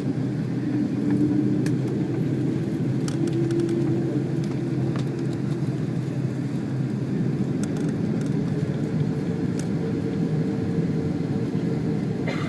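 Steady low rumble of a Boeing 777-200's engines and airframe heard from inside the cabin. A faint engine tone sits in the rumble and shifts slightly higher about three-quarters of the way through.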